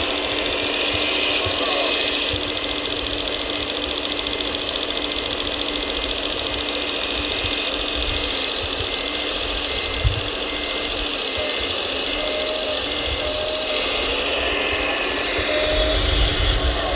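Scale RC Komatsu hydraulic excavator working: the steady whine of its small electric hydraulic pump and motors, with the pitch briefly sliding as the arm and bucket move. A single knock about ten seconds in.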